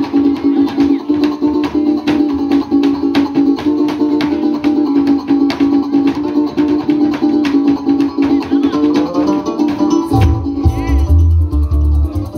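Live llanero joropo music: fast plucked and strummed strings with a steady rattling beat of short sharp strokes. A deep bass comes in strongly about ten seconds in.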